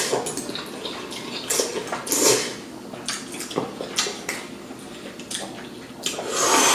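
Someone eating spicy noodles: wet slurping of noodles and light clinks of a utensil against the bowl, with a longer, louder rush of noise near the end.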